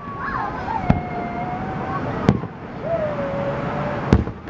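Aerial firework shells bursting: three sharp bangs about a second and a half apart. A held tone that wavers and slides in pitch runs beneath them.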